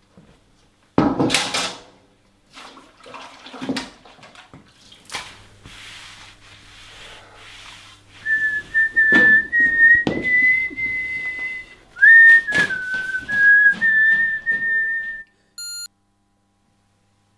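A person whistling a wandering tune in two long phrases through the second half, with several knocks and clatters before it, the loudest about a second in. A brief electronic beep sounds near the end.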